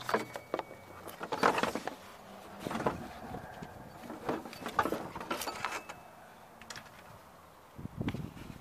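Hands working a serpentine belt around a car's alternator pulley: irregular clicks, knocks and rubbing of rubber and metal, with a heavier knock near the end.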